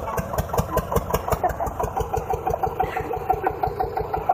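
Old Eicher tractor's diesel engine running slowly with an even, rapid knocking beat, several beats a second.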